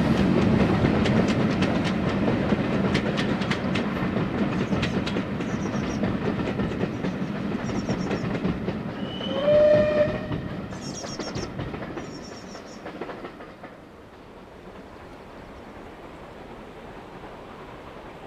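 Steam-hauled train passing and drawing away, its coach wheels clicking over the rail joints as the sound fades. About halfway through a short whistle sounds once, rising briefly and then holding for about a second. Birds chirp over it, and after it a quiet open-air background remains.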